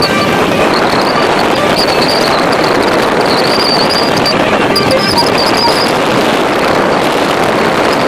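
Steady, loud noise of a motorboat under way: engine, water and wind together, with a high thin whine that wavers and comes and goes.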